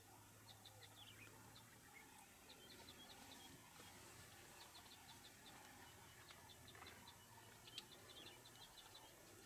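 Faint bird calls over quiet open-air ambience: short series of quick, high chirps repeated every second or so. A single sharp click sounds near the end.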